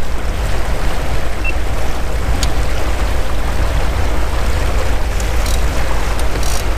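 Motorboat under way: a steady low rumble of the running boat and wind buffeting the microphones, with water rushing past the hull.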